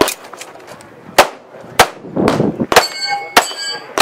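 Pistol shots from a Para P14, fired singly and irregularly, about half a second to a second apart.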